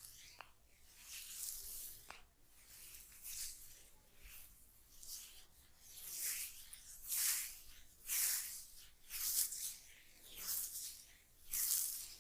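Oiled hands rubbing and squishing through hair and scalp in an oil head massage: wet swishing strokes that rise and fall about once a second.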